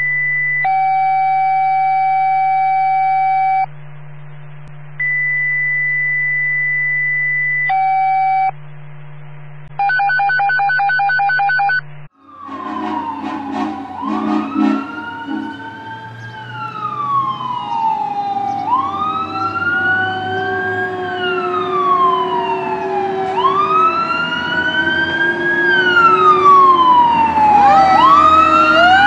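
A series of steady electronic tones and beeps for about twelve seconds. Then a fire engine's siren starts wailing, sweeping up and down about every two and a half seconds over the low rumble of its engine, and grows louder as the truck approaches.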